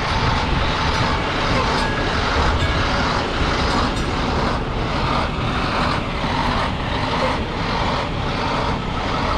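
A vehicle's engine running close by, a steady rumble with a noisy hiss over it.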